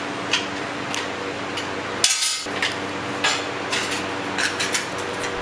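Metal tools and parts clinking and tapping as they are handled, likely while a spare angle grinder is put together. The clicks are scattered, with a brief louder rasp about two seconds in, over a steady hum.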